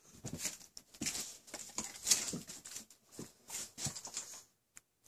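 Irregular pattering and rustling of footsteps on carpet as a dog walks down a hallway with a person following. It stops about four and a half seconds in.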